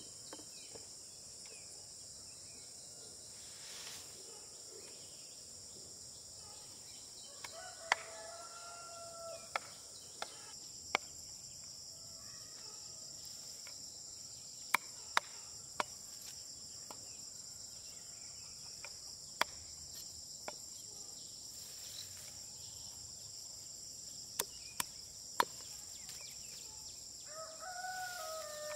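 A rooster crows twice, once about a third of the way in and again near the end, over a steady high drone of insects. Sharp single knocks of a knife blade striking a wooden chopping block come at irregular intervals through the middle, as peanut pods are chopped from their stems.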